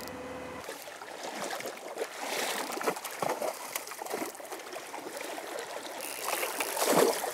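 Water splashing as a hooked Atlantic salmon thrashes at the surface while it is led to the net, in irregular surges with the loudest splashing near the end.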